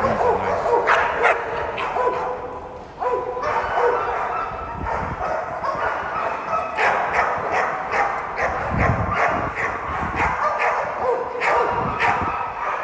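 American Pit Bull Terriers barking over and over in quick runs of short, sharp barks, with higher yips mixed in.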